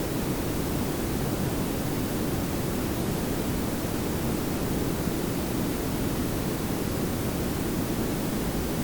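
Layered pink and brown noise, a steady, even hiss over a low rumble with no change.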